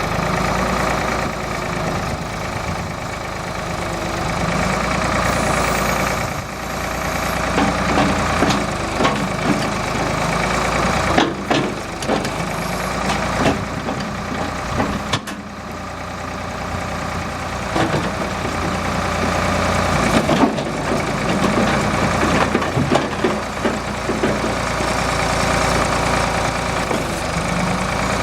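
Engine of a Ford 4500 tractor loader backhoe running steadily, with irregular knocks and clanks through the middle stretch.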